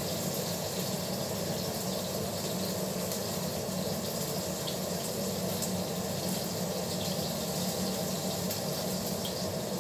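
Steak sizzling steadily in a hot frying pan, with faint crackles and pops over the frying hiss.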